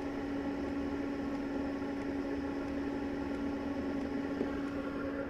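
Planar diesel heater with an Autoterm heater at its core running steadily after start-up, heard close by at its fuel pump: an even hum with one strong steady tone over a rushing noise, measured at 74 decibels.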